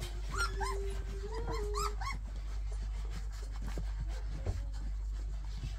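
Young puppies, three to four weeks old, whimpering and squeaking: a run of short high-pitched cries over a held lower whine in the first two seconds, then quieter shuffling. A single sharp knock about four and a half seconds in.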